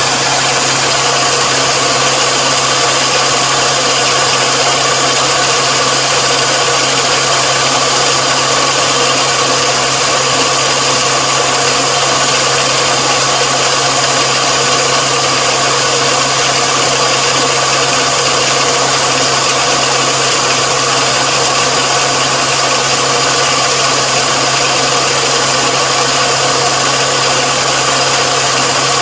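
Combine harvester's engine running steadily at constant speed: an unchanging drone with a constant hiss over it.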